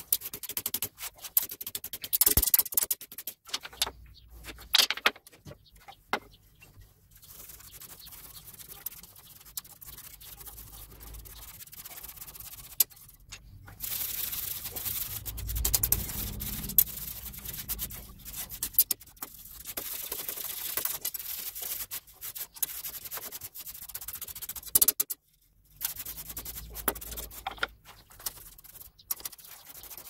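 Hand wire brushes, brass-bristled among them, scrubbing back and forth over a steel wire rope on an anvil: a run of rough, scratchy strokes, pausing briefly twice.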